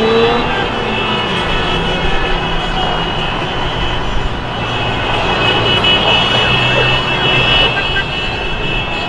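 City street noise of celebrating traffic after a goal: car engines running, with long, steady high horn-like tones held over dense street noise.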